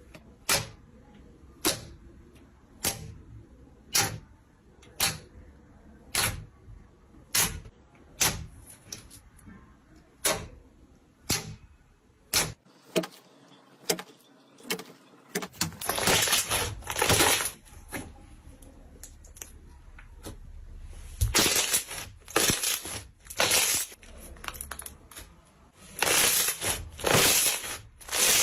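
Slime being pressed and squished by hand, giving sharp clicking pops about once a second, then longer, denser crackling squishes about halfway through and again near the end.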